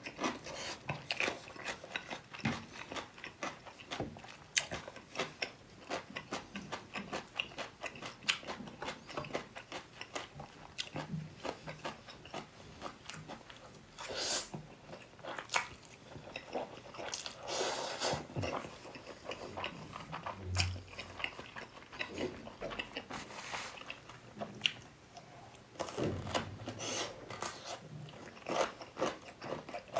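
Close-miked eating: steady chewing with many crisp crunches from biting whole pickled radish, alongside mouthfuls of black bean noodles. A few longer noisy mouth sounds come near the middle.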